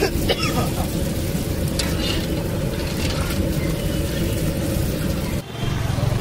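Burger buns deep-frying in hot oil in a kadhai, a steady sizzle over a low rumble, with a few sharp clinks of the metal skimmer at the start. About five and a half seconds in, the sound cuts abruptly to street noise.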